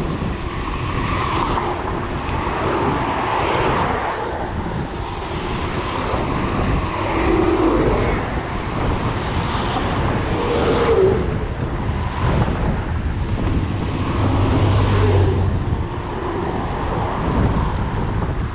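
Steady wind rush on a GoPro Hero7 Black's microphone as a mountain bike is ridden, with cars passing on the road alongside, swelling about ten seconds in and again a little later.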